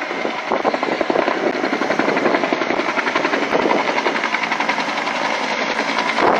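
Helicopter flying over the fire, its rotor giving a rapid, even chopping beat.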